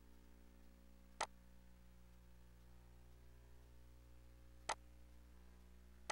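Plunger of a car starter motor's magnetic switch (solenoid) clicking as it is worked by hand: three sharp metallic clicks a few seconds apart, over a faint steady low hum.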